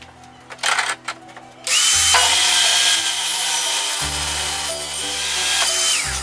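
A power tool motor runs at full speed for about four seconds, starting about two seconds in. Its steady whine comes up at the start and drops away as it is switched off. A few short knocks come before it.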